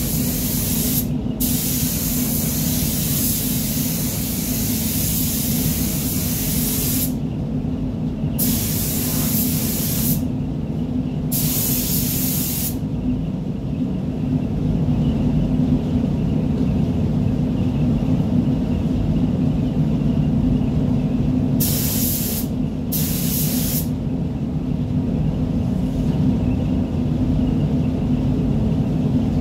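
Compressed-air paint spray gun hissing in trigger pulls: several passes of a few seconds each in the first half, then two short bursts about three-quarters of the way through. Under it the paint booth's air extraction runs with a steady low hum.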